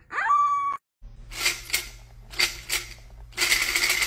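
A puppy's short awoo howl, rising and then holding its pitch, ends under a second in. Then dry kibble rattles in a dog bowl being shaken: a few separate shakes, then a longer run of rattling near the end.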